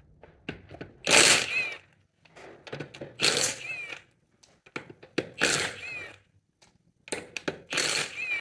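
Cordless impact wrench spinning wheel bolts off in four short bursts, each under a second, with a whine that bends in pitch near the end of each burst. The bolts are coated in copper grease and come free easily.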